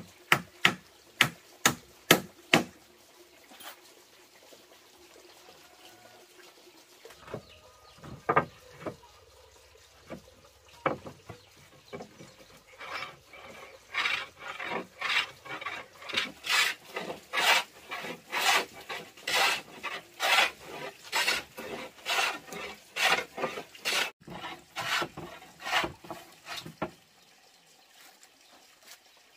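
Wooden hand plane shaving along a hardwood plank in regular rasping strokes, roughly one a second, starting about halfway in. Near the start there is a quick run of six sharp knocks.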